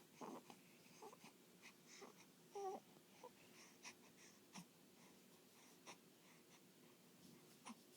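Baby making quiet, short squeaks and breathy little noises, with one longer squeal a little under three seconds in; a few faint clicks later on.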